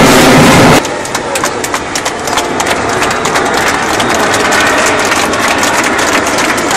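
Military jet roaring past overhead, cut off abruptly under a second in. Then a quieter steady noise with many scattered crackles.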